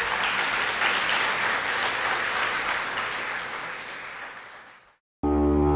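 Audience applauding, dying away over about five seconds. After a short break, music with held notes starts near the end.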